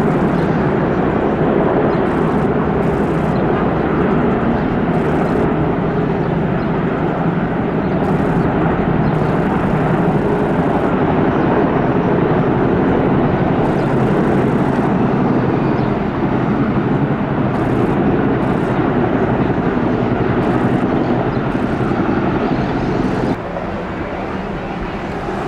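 Military helicopters passing overhead in formation: a steady, dense rotor and turbine noise that drops suddenly in level near the end.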